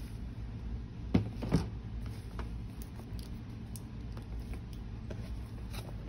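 Books being handled while sorting through a pile: two knocks a little over a second in, half a second apart, with faint clicks and rustles after them, over a steady low hum.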